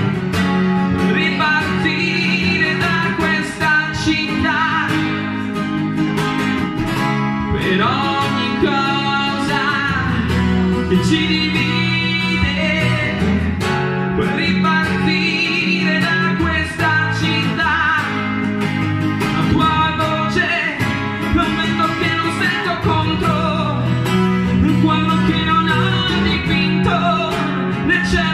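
A man singing into a microphone while playing an acoustic guitar: a live song.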